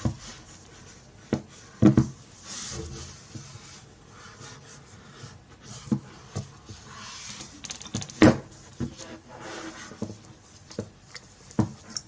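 Hands handling a phone's cardboard box and packaging: rubbing and sliding with several sharp taps and knocks, the loudest about eight seconds in.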